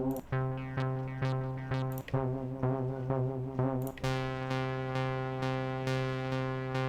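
Analog-modelling software synthesizer preset playing sustained chords over a steady low note, pulsing with re-struck notes about twice a second and a wavering pitch. About four seconds in it changes to a brighter, fuller chord.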